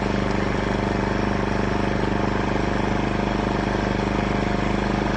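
TACKLIFE portable inverter generator's small four-stroke gasoline engine running steadily at a constant speed, a quiet even hum.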